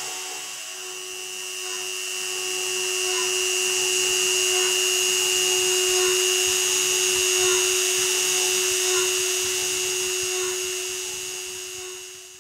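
Dremel 300 rotary tool in a homemade CNC router, spinning a 45-degree engraving bit as it cuts small dots into wood. It makes a steady high whine over hiss, grows louder over the first few seconds and fades out near the end.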